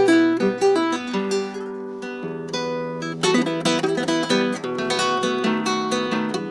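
Acoustic guitar played solo, plucked and strummed notes and chords of a chamarrita introduction.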